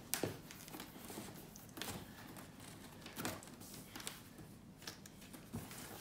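Faint handling of a tall cardboard box: scattered soft knocks, scrapes and crinkles as it is gripped and tilted.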